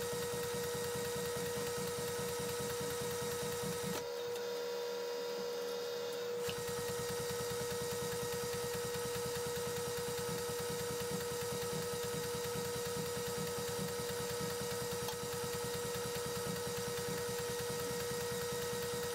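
Milling machine running steadily: a constant motor hum with a steady mid-pitched whine and a fast even pulsing underneath. About four seconds in, the low hum thins out for roughly two seconds.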